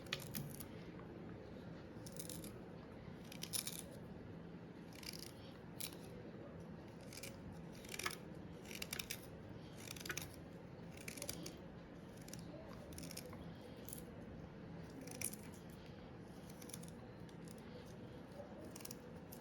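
Knife cutting peeled fresh ginger into small pieces: faint, irregular crisp cuts.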